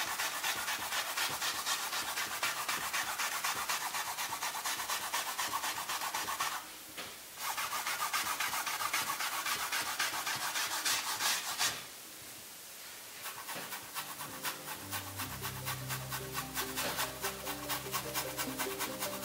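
Cotton swab scrubbing quickly back and forth over wet acrylic paint on a stretched canvas, a dry rasping rub that stops briefly twice. Soft music comes in during the last few seconds.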